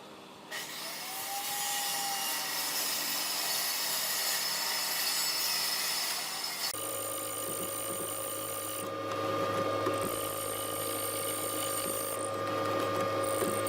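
Power tools working wood: a steady, noisy cutting or sanding sound, which changes abruptly about seven seconds in to a different machine with a steady hum.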